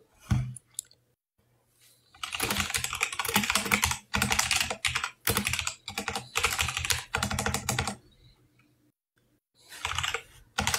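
Typing on a keyboard: rapid key clicks in several runs with short breaks, starting about two seconds in. A brief low thump comes just before.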